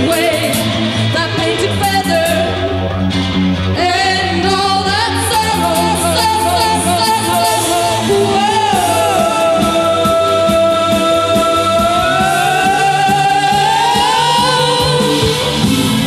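A woman singing a rock song live over an electric band with guitar. About halfway through she holds one long note, then slides up in pitch.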